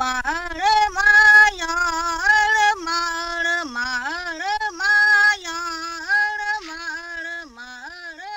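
A woman singing alone without accompaniment, a melody of short held notes with slides between them.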